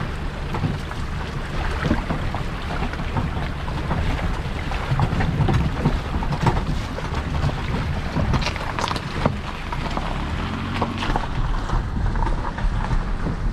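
Toyota RAV4's front tyre rolling through a muddy puddle and over loose stones on a rocky dirt trail: water splashing and stones clicking and crunching under the tread, over a low rumble of wind on the microphone mounted by the wheel.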